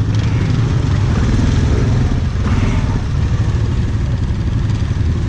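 ATV engine running steadily at low speed.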